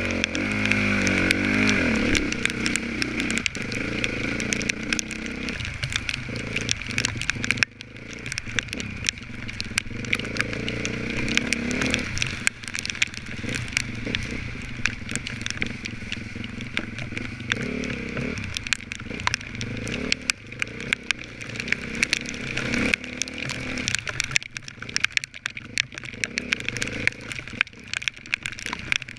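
Off-road race dirt bike engine revving up and down as the throttle is worked, with frequent clatter and knocks throughout. The engine drops off sharply about a quarter of the way in, then picks back up.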